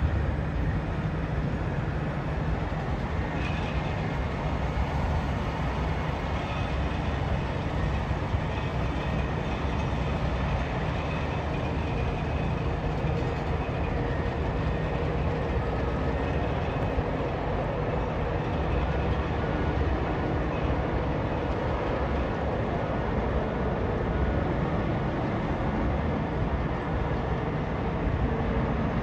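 Steady low rumble of heavy diesel logging machinery and trucks working across a log sort yard, heard from a distance as one unbroken drone.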